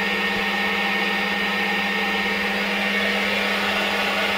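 PDS 7.5 hp (5.6 kW) three-phase CNC spindle, run by a VFD from single-phase power, milling aluminum with a half-inch end mill: a steady tone under a dense, even cutting noise.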